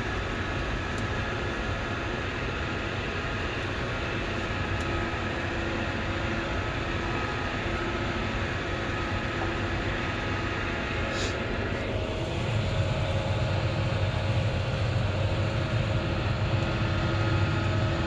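Tractor engine running steadily while pulling a plough through the field. About twelve seconds in it gets louder and deeper, as if it is working harder.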